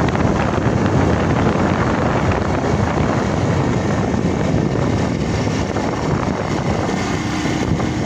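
Steady engine and road noise from a moving vehicle, mixed with wind rushing over the microphone.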